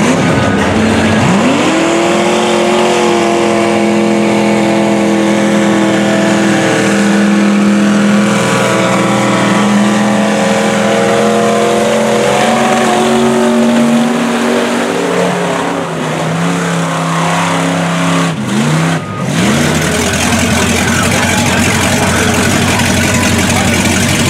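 Two-engine Ford mud-bog truck running wide open at full throttle: the engine pitch climbs steeply in the first couple of seconds, then holds high and sags slowly as the truck plows through the mud. Late on the throttle drops for a moment and then comes back in, and the engines keep revving high.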